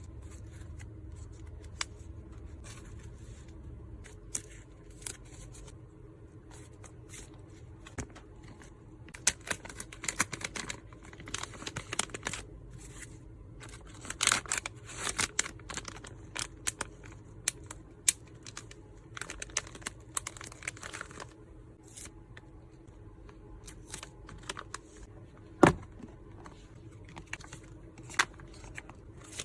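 Hands packing items: packaging rustling and crinkling, with tearing and scattered light clicks and taps. One sharper, louder click comes near the end.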